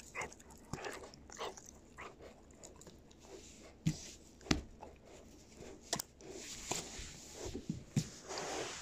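White shepherd puppy gnawing a dried beef Achilles tendon chew: irregular crunching of teeth on the hard chew, with several louder sharp cracks from about four seconds in.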